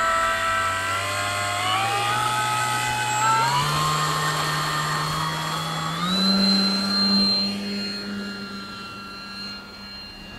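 Radio-controlled model seaplane's motor running, its pitch stepping up three times as the throttle is advanced. It grows fainter near the end.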